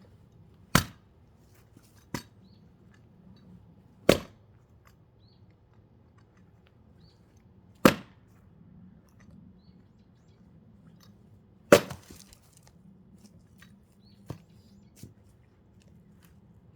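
Heavy chopping blows splitting a thick log of firewood: four loud cracking strikes about four seconds apart, with a few lighter knocks between and after them.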